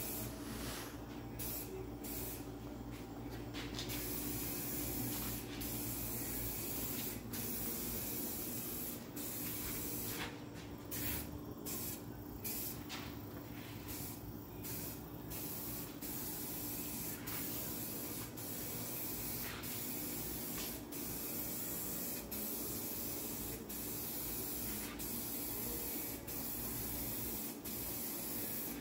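Eastwood 2K AeroSpray aerosol can spraying high-temp ceramic gloss black engine paint: a steady hiss in passes, broken every second or two by brief stops as the nozzle is let go.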